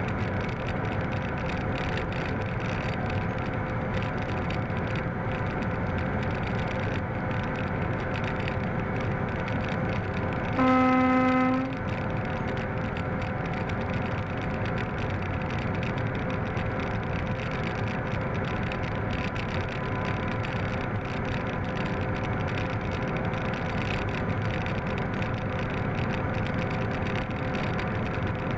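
Class 750 diesel locomotive's V12 engine running steadily under way, with wheels on rail, heard from the cab. About eleven seconds in, the locomotive sounds its horn once, a single-tone blast about a second long.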